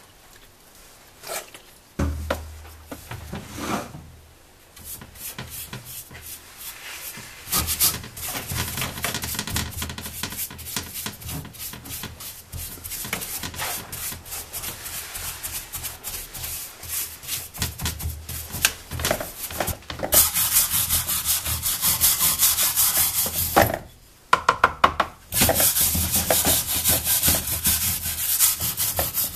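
Rapid scrubbing strokes of a brush on a diesel-soaked motorcycle exhaust silencer, as the grime is cleaned off. The strokes grow louder and harsher about two-thirds of the way through, and near the end a flat blade scrapes the metal.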